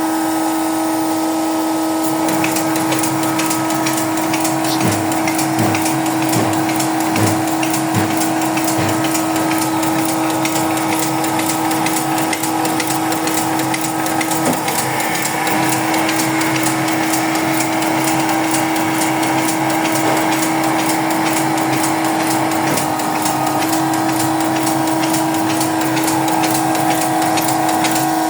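Cosmetic capsule-making machine running, with a steady hum and rapid, continuous clicking. A few low knocks come in its first third.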